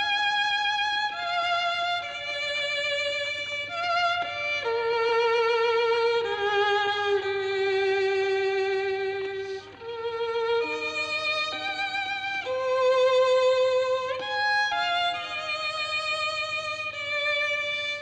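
Background film music: a slow, lyrical violin melody of long held notes with vibrato, stepping up and down.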